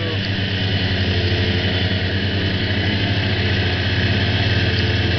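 Snowmobile engine running steadily under way, a low even drone with a fast regular pulse.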